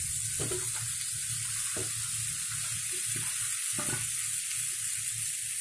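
Fried chicken pieces and masala sizzling in hot oil in a non-stick pan as a wooden spatula stirs them together, with a few short scrapes of the spatula through the mix.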